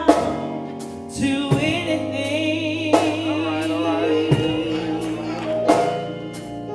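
Gospel song: a woman soloist sings into a microphone, holding a long note with vibrato on the line "amount to anything". Behind her, sustained chords and a slow, steady drum beat keep time.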